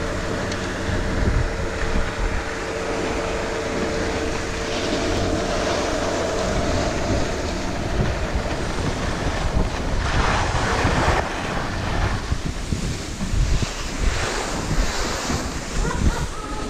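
Wind buffeting the camera microphone of a downhill skier, with the steady hiss and scrape of skis running over groomed snow; the scraping grows louder for about a second about ten seconds in.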